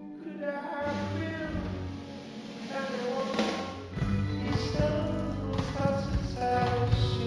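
Soundtrack music: a melodic line over a low backing, with a tapping beat that comes in about four seconds in.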